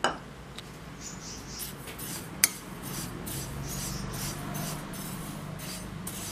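Steel spoon stirring white sesame seeds in a hot kadai to dry-roast them: repeated scraping strokes of seeds rubbing over the pan, with a knock right at the start and a sharp clink of spoon on pan about two and a half seconds in.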